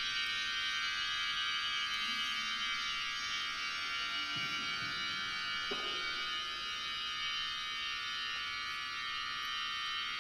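Cathedral pipe organ holding a dense, high tone cluster, many pipes sounding together in a steady, unchanging mass.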